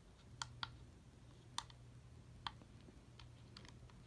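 Faint, irregular clicks of an Onn HD digital camcorder's buttons being pressed one after another, about seven in all, as someone tries to find the record button. A low steady hum sits underneath.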